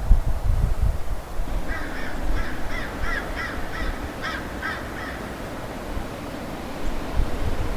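A bird calling in a quick run of about ten short calls, roughly three a second, over a low, gusty wind rumble on the microphone.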